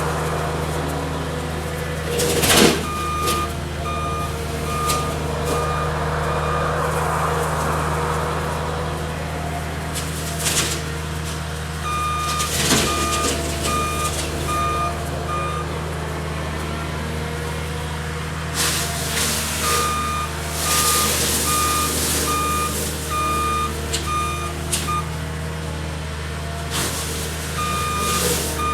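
Cat 279D skid steer's diesel engine running steadily under load, its backup alarm beeping about twice a second in several runs as it reverses. Sharp cracks and crashing rushes of breaking brush come through a few times.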